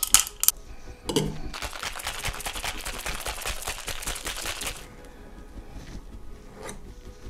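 Ice cubes clinking into a stainless steel cocktail shaker, then a knock as the shaker is closed about a second in. After that the shaker rattles with ice, shaken hard for about three seconds before it goes quieter.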